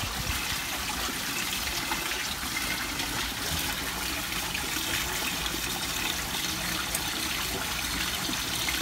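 Water running steadily into a gold-panning trough, a continuous trickle.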